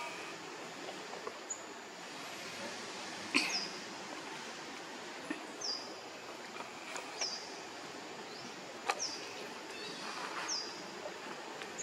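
Outdoor ambience: a steady hiss, with a short, high downward chirp repeating every second or two. Two sharp clicks stand out, about three and a half seconds in and again near nine seconds.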